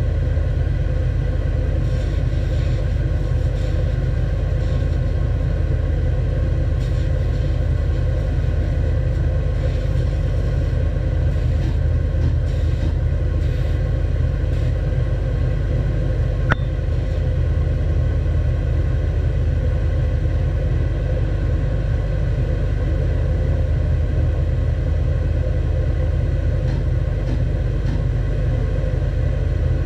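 Stationary edge belt sander running with a steady low drone, with light scratching as small wooden tiles are held against the moving abrasive belt. A single sharp click about halfway through.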